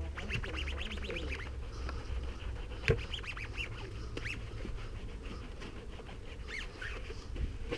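A wet sponge rubbed over the soapy painted bodywork of a Yamaha FZS1000 motorcycle, giving short high squeaks, thickest in the first second or so and again near the end, over a steady low rumble. One sharp knock about three seconds in is the loudest moment.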